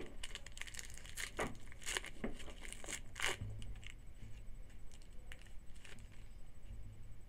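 A trading-card pack wrapper being torn open and crinkled by hand: a few quick rips and rustles in the first three seconds or so, then quiet handling.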